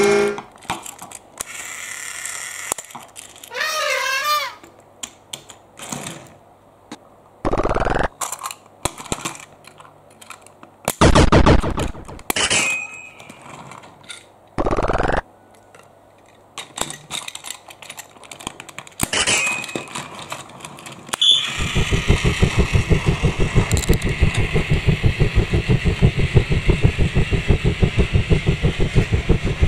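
Battery-powered Plarail toy train running on plastic track: a steady motor hum with a fast rhythmic clatter, starting about two-thirds in. Before that come scattered handling clicks and a few short loud swishes.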